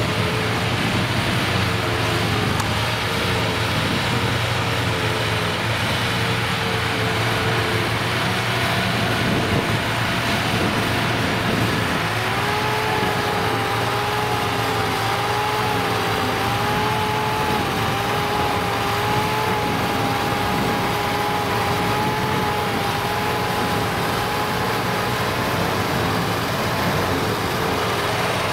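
County four-wheel-drive tractors running steadily under load while a trailed forage harvester chops grass and blows it into a silage trailer: a dense, even drone. From about twelve seconds in, a wavering whine rides on top.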